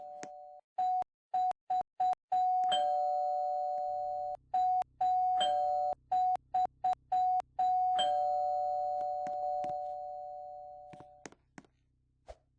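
A two-tone electronic ringing, sounded over and over in quick short bursts and longer held stretches, with clicks where it switches on and off; it fades away near the end.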